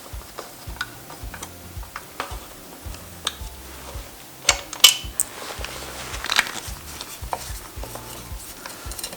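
Sharp metallic clinks and clicks of tools and loose metal parts being handled, the loudest a cluster about halfway through, over background music with a steady bass beat.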